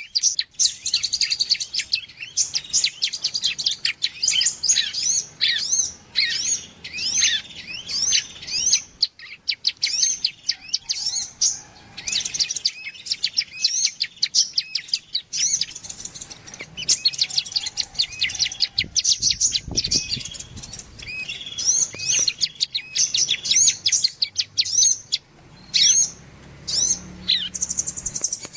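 Bird-lure recording of small songbirds, a bar-winged prinia (ciblek) and a sunbird (kolibri), giving rapid, overlapping high chirps and trills with only brief pauses. This is a lure call played to draw small birds in.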